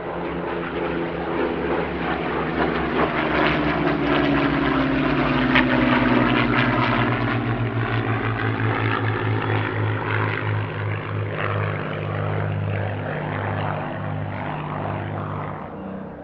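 Piston engine of a Spitfire flying past, its pitch falling as it goes by. Loudest about five or six seconds in, then fading away.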